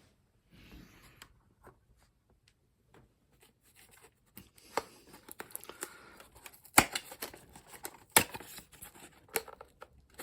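A product box being opened and its packaging handled: faint rustling at first, then from about four seconds in, scraping and rustling broken by sharp snaps, the loudest two about a second and a half apart.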